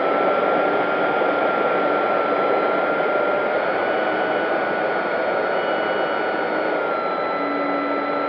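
Electric brushless motor and propeller of an FMS P-40B Tomahawk RC warbird running at a steady high-pitched whine, heard from on board the plane over loud rushing wind. The pitch steps slightly up about three and a half seconds in and settles back down near the end.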